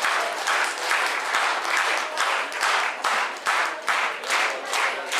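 Audience applauding in rhythm, clapping together about twice a second.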